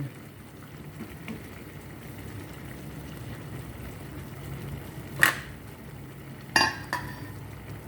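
A few light clinks of a utensil against a dish: one about five seconds in, then two close together near the end, over a faint steady hum.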